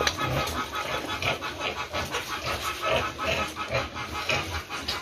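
Hungry fattener pigs grunting in a dense, irregular run of short calls at feeding time.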